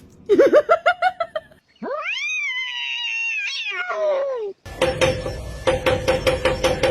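A cat meowing: a quick series of short rising chirps, then one long yowl that rises and falls. From about five seconds in, a fast run of clicks or knocks over a steady hum takes over.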